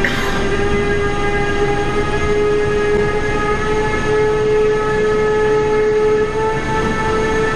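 Train running through a station: a steady rumble under a whining tone with overtones that rises slowly in pitch, with a short sharp hit just at the start.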